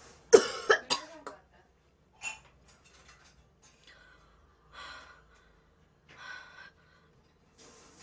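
A woman gagging with short strained cries in the first second, then coughing and clearing her throat about three times, spaced a second or two apart, at the greasy taste of a cup-noodle seasoning packet.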